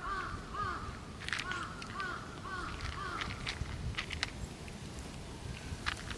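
A bird calling in a quick series of about eight short, arched calls, roughly two a second, that stop after about three and a half seconds. Scattered sharp clicks run under the calls.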